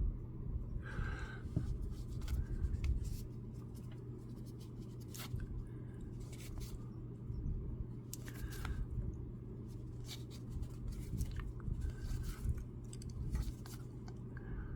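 Baseball trading cards being handled and flipped through, with scattered soft scrapes and light clicks over a steady low hum.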